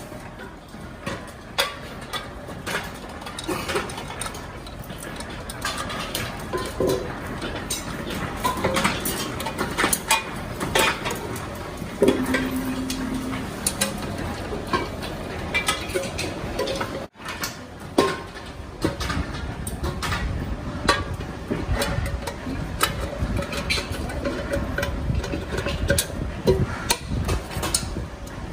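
Irregular metallic clanks and taps of pressure cooker parts being handled and worked, with a low rumble joining in the second half.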